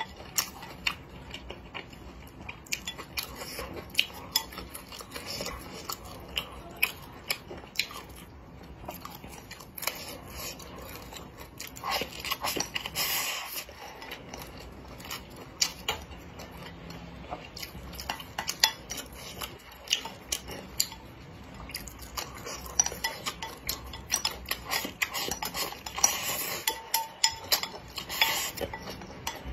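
Close-miked eating: wooden chopsticks clicking against a ceramic bowl, with chewing of braised chicken feet and rice. Sharp clicks run throughout, with two longer noisy stretches, one about halfway through and one near the end, as food is eaten straight from the tipped bowl.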